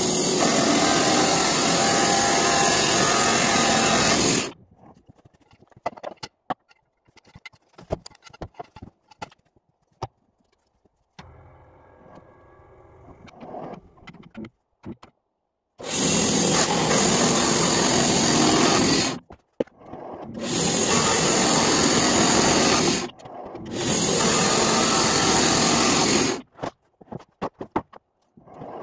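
Wood-Mizer LT15 Wide band sawmill with an 11 kW electric motor, its band blade cutting lengthwise through a log. The cutting comes in several loud stretches that start and stop abruptly. Between them is a quieter stretch of scattered clicks and a faint hum.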